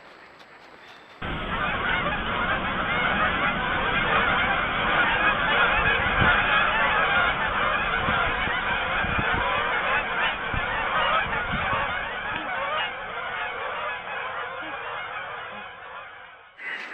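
A large flock of geese honking, many calls overlapping at once. It starts abruptly about a second in, eases off a little in the last few seconds and cuts off just before the end.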